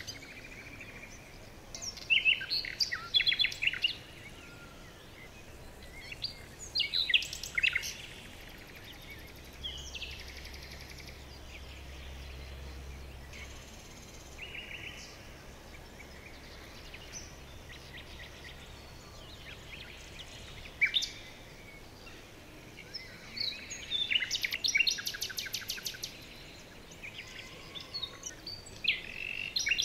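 Small birds chirping and calling in scattered bursts, with a quieter stretch in the middle and a fast, evenly repeated trill near the end.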